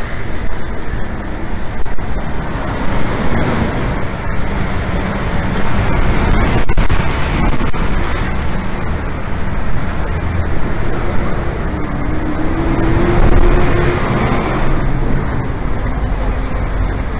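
City street traffic noise: a steady din of passing vehicles, with a faint rising engine tone a little past the middle.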